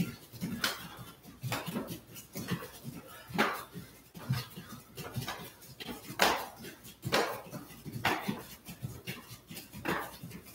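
The rhythmic sound of people doing jumping jacks on a padded mat floor: a landing and a hard breath at each jump, about one a second.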